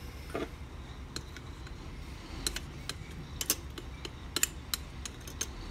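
Rusty padlock being handled: a string of small, irregular metal clicks and taps, coming thicker in the second half.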